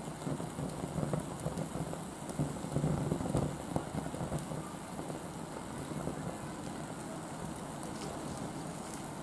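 Alcohol stove flame burning up through a foil-wrapped chimney of Oga binchotan charcoal that is being relit: a steady rushing draught with scattered small crackles and pops from the charcoal.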